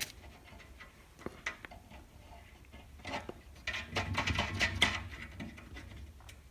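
Scattered light clicks and taps of small fixing hardware, screws and nylon washers, being fitted to the glass top's frame, busiest about four to five seconds in.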